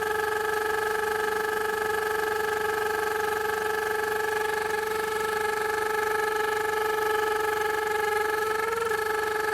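A 2003 Honda Civic's engine running with a steady, high whistling tone, the noise the owner calls chirping, wavering slightly near the end. The owner traces it to a hose that probably needs replacing.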